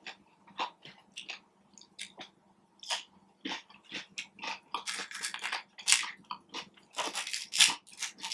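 Close-miked chewing and mouth sounds of a person eating: a string of short, irregular wet clicks and smacks that grow denser and louder from about halfway through.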